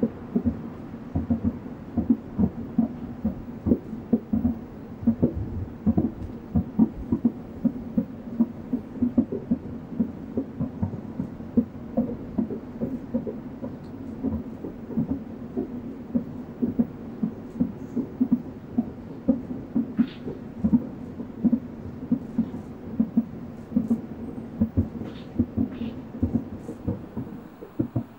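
Aerial fireworks shells bursting, a rapid run of booms and pops several times a second, over a steady low drone.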